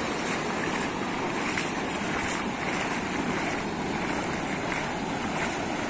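Steady rush of ocean surf washing through the shallows.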